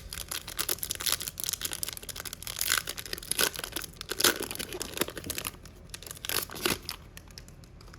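A foil trading-card pack wrapper being torn open and crinkled, a dense crackling that thins out after about five and a half seconds, with a few sharper crinkles near the end.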